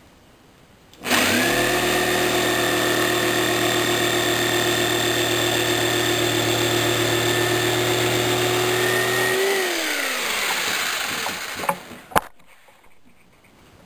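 Jigsaw starting up about a second in and running steadily as it cuts through a wooden block, then switched off and winding down with falling pitch. A single sharp knock follows a couple of seconds later.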